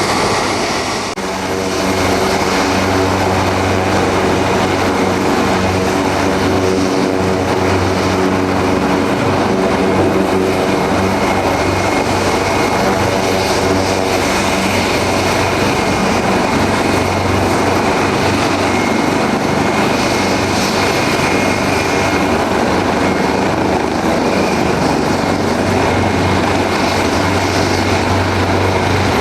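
Leonardo AW189 twin-turbine helicopter running steadily, a continuous turbine whine over the rotor's hum, with a brief dip about a second in.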